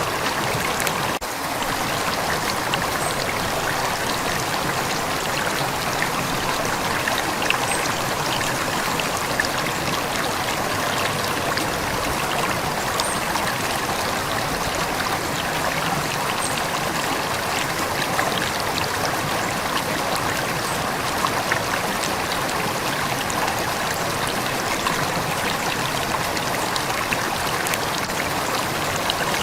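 River water flowing steadily, an even, unbroken rushing with small splashy ticks through it. The level dips briefly about a second in.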